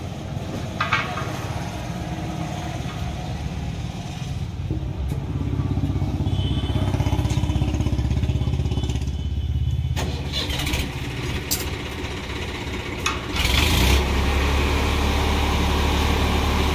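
An engine running steadily, its low hum growing louder and lower near the end. A few sharp clicks over it.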